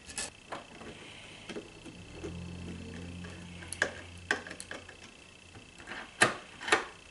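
Scattered clicks and knocks of screws and metal lock hardware being handled while the smart deadbolt's interior unit is screwed on, with a low hum for about two seconds in the middle. Two sharper knocks near the end are the loudest.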